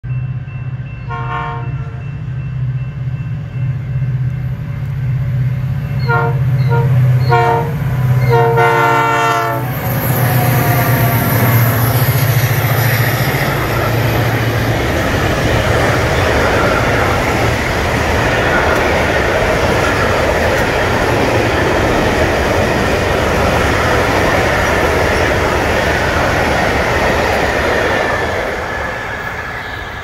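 Two EMD GT26CW diesel locomotives passing, with their EMD 645 two-stroke diesel engines droning and an air horn sounding: a short blast about a second in, three short blasts around six to seven seconds, and a longer blast that ends near ten seconds. A long train of hopper cars then rolls by with steady wheel-on-rail clatter, easing off near the end.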